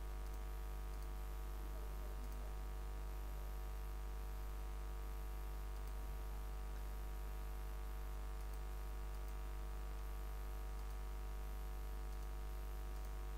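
Steady low electrical mains hum with many evenly spaced overtones, with a few faint computer mouse clicks.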